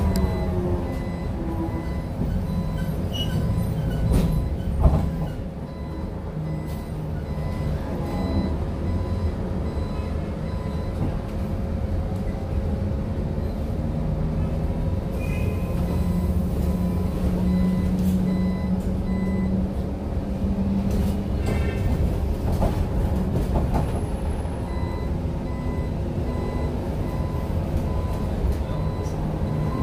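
City bus moving, heard from inside: a steady low rumble with a pitched drive hum that rises and swells for several seconds in the middle. There is a single thump about five seconds in, and a faint repeated high beep.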